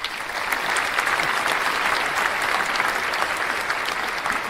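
Crowd applauding steadily, a dense clatter of many hands clapping.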